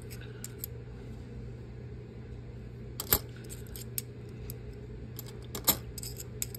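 Half dollar coins clinking against each other as they are slid off and turned over on a stack held in the hand: a few sharp metallic clicks, the loudest about three seconds in and a small cluster near the end. A steady low hum runs underneath.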